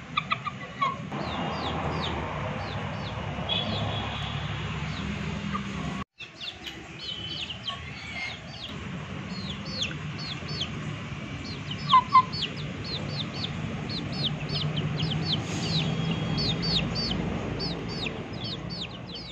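Young chickens peeping over and over in short, high, falling notes, with a few lower clucks from a chicken near the start and two more about twelve seconds in.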